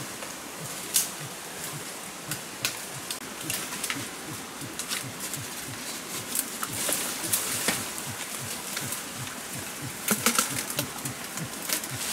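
Dry bamboo leaves and twigs crackling and snapping underfoot and against the body while pushing through undergrowth, over a steady background hiss. The loudest snaps come about a second in and in a cluster near ten seconds.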